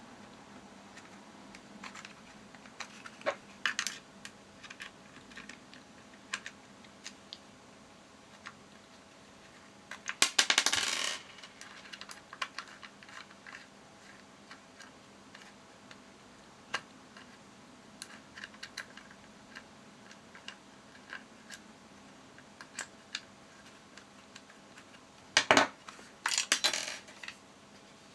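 Small clicks and clinks of plastic and metal parts being handled as a Wahl 9655 hair clipper is taken apart, with a longer rattling clatter about ten seconds in and a few more near the end.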